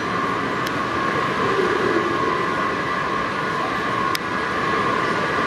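Kawasaki 7000-series Metro train leaving through the tunnel, a steady high-pitched whine carrying through the station. Two faint clicks, about a second in and about four seconds in.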